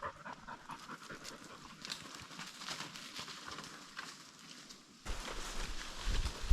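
A hunting dog panting faintly and rapidly. About five seconds in, this gives way abruptly to a low rumble of wind or handling on the microphone, with a sharp thump near the end.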